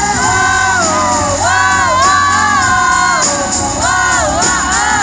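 Live pop song played over an arena sound system, a high sung melody gliding over the backing track, with the audience cheering and shouting along.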